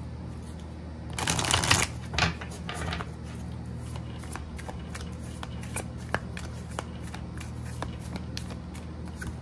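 A deck of oracle cards being shuffled by hand: a dense rush of cards sliding against each other about a second in, a couple of shorter rustles after it, then light scattered flicks and taps of cards.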